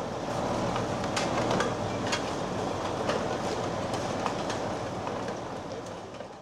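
Truck-mounted loader crane running, its engine and hydraulics making a steady mechanical rumble while a tree's root ball is lowered on it, with scattered knocks and clanks.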